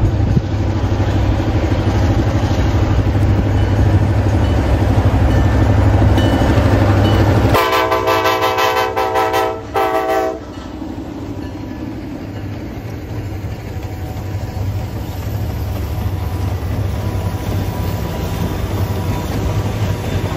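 Kansas City Southern diesel locomotives of a freight train passing close by with a heavy low engine rumble. About seven and a half seconds in, a locomotive air horn sounds for nearly three seconds, with a brief break near its end. After it, the trailing units and freight cars roll past on the rails.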